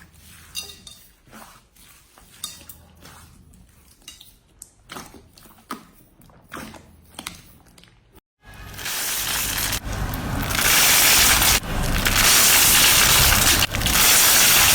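Slime being handled: soft scattered clicks and squelches. Then, after a sudden cut about eight seconds in, a much louder dense crackling hiss of slime being crushed and worked.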